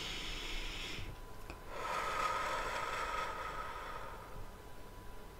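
A woman's deep breath: a short inhale in about the first second, then a longer, slower exhale lasting a couple of seconds.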